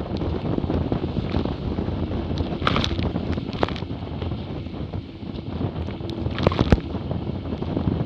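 Wind buffeting the camera microphone over the rush of water past the hulls of a Hobie 20 catamaran sailing at about 15 knots. Several sharp splashes of spray cut through it, the loudest pair about two-thirds of the way in.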